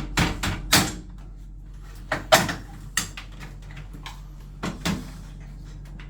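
A series of sharp knocks and clicks from boiler casing and control-board parts being handled and pushed into place, the loudest about two seconds in, over a steady low hum.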